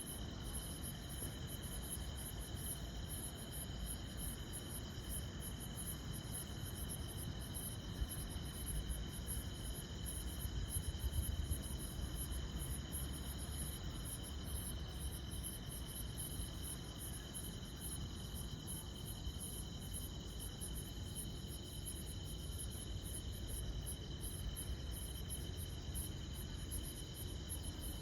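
A chorus of insects: fast, even pulsed chirping over a steady high-pitched trill. Beneath it is a low rumble that swells briefly about ten seconds in.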